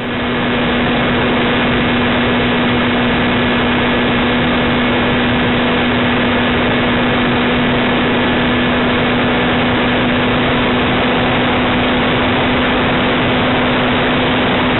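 Steady rush of airflow and a constant drone from the motor and propeller of a quarter-scale radio-controlled model aircraft in level flight, picked up by a camera mounted on the airframe. It fades in at the start and holds without change.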